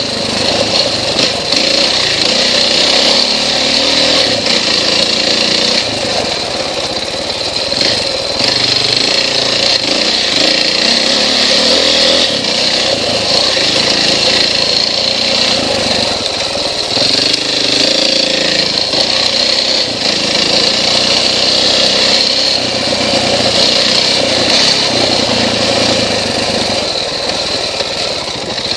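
KTM XC-W off-road motorcycle engine running continuously under load, its level dipping and rising with the throttle.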